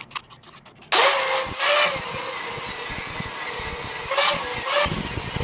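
TIG welding arc struck about a second in, then running with a steady hiss and buzz, with brief louder swells twice along the way.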